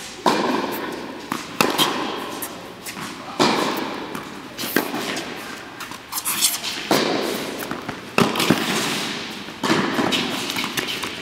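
Tennis ball being hit back and forth with poly-strung Angell TC95 rackets and bouncing on an indoor hard court during a groundstroke rally. A sharp pop comes about every second or two, each followed by a long echo off the hall's walls and roof.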